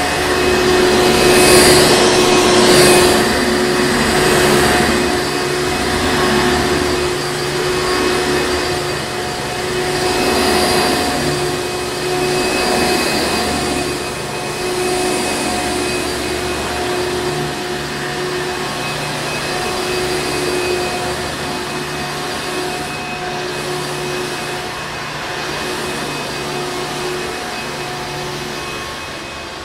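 Hoover Encore Supreme upright vacuum cleaner running with a steady hum, its rushing air noise swelling and easing every few seconds.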